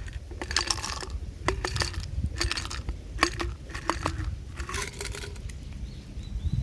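Metal clinking and rattling in short bursts, about one a second, with ringing metallic tones, over a steady low rumble.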